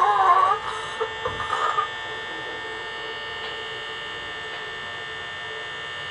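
A wavering pitched tone fades out within the first half-second. A few faint ticks follow, and then a steady hum with a high, even whine runs on.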